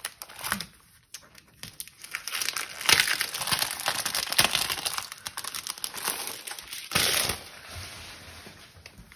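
Clear plastic cellophane packaging sleeve crinkling as it is opened and handled: a run of rustles and crackles starting about two seconds in, loudest near three and seven seconds in, then dying down to faint rustling.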